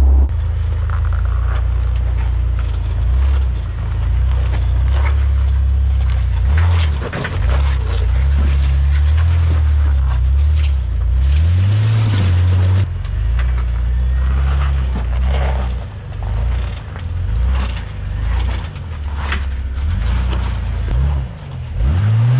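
Jeep Wrangler TJ engine running at low, uneven revs as it crawls over boulders, the pitch rising and falling with the throttle, with short scrapes and crunches of tyres and underbody on rock.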